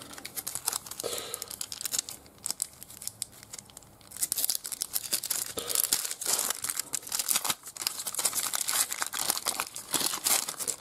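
Foil wrapper of a trading-card pack being torn open and crinkled: soft handling rustles at first, then a dense crackling rustle from about four seconds in until near the end.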